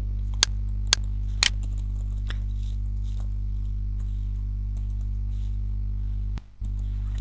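A steady low hum with three sharp clicks about half a second apart near the start, then fainter scattered ticks: computer keyboard keys and mouse clicks while a search is typed in. The hum cuts out briefly near the end.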